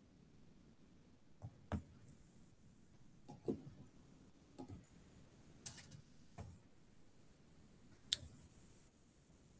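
Faint, irregular clicks and light knocks, about seven of them spread unevenly over the stretch, against quiet room tone.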